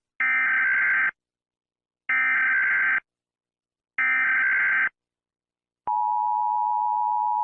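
Emergency Alert System SAME header: three identical data bursts of about a second each, spaced about a second apart, followed about six seconds in by the steady two-tone EAS attention signal, which marks the start of a new alert.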